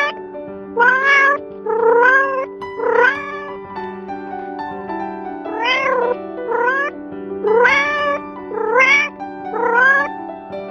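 Black kitten meowing again and again: about nine short meows, each rising then dipping in pitch, coming about once a second with a short pause near the middle, over soft background music.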